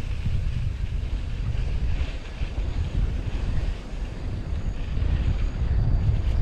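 Wind buffeting the microphone: a steady, deep rumbling rush with constant fluttering.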